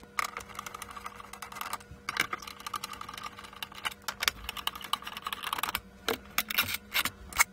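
Electric screwdriver running steadily as it backs long screws out of a plastic instrument case, with rapid irregular clicking throughout.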